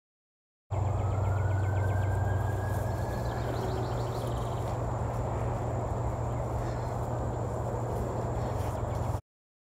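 Summer field ambience: a steady high insect drone with bursts of chirping, over a low steady hum and a faint whine that rises slightly over the first few seconds. It starts abruptly about a second in and cuts off just before the end.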